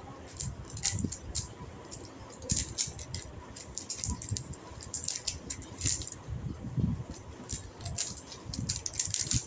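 Two puzzle cubes being turned fast by hand: quick, irregular clicking and clacking of the plastic layers, with soft knocks from handling.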